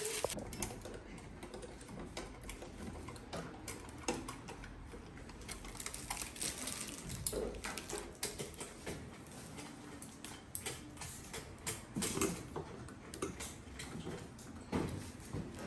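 Irregular light clicks and taps of hand tools and fittings against the plastic and metal parts of a scooter's cockpit, with a few slightly louder knocks.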